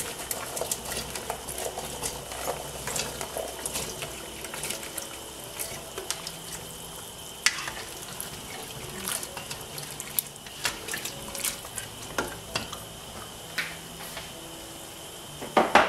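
Cubed sweet potatoes tumbling into a pot of simmering water with half-cooked cassava, then a ladle stirring and knocking against the pot. Scattered clicks and clunks sit over the steady bubble of the water, with a louder clatter near the end.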